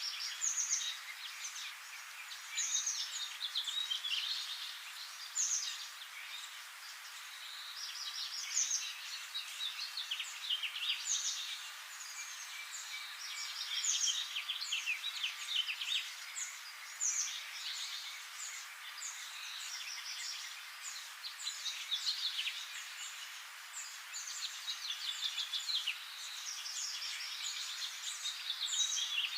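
A chorus of small birds singing and chirping, many short, quick calls overlapping, over a steady hiss.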